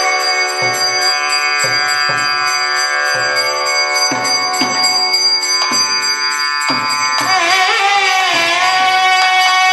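Nadhaswaram playing raga Behag: a long held note, then a wavering, ornamented phrase from about seven seconds in. Thavil drum strokes land about once a second underneath.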